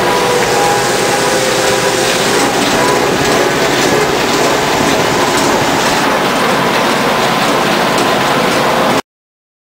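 Tractor engine and mower running under load, heard from inside the cab, a loud steady din with a fast rattle through it. It cuts off abruptly near the end.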